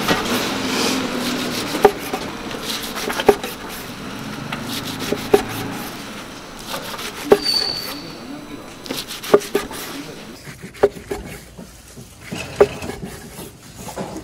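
Kitchen knife slicing through rolls of gimbap, knocking sharply on a wooden cutting board every second or two, with soft rubbing and rustling between the cuts.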